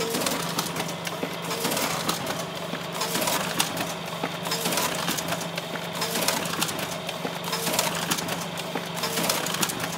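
Pitney Bowes Relay 4500 folder-inserter running a fold-and-insert job: a steady motor hum under fast, continuous clicking of the paper-handling mechanism, with a short chirp about once a second as each cycle comes round.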